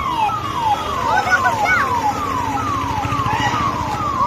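A siren-like electronic tone that sweeps down in pitch about twice a second, repeating evenly, over a low steady rumble.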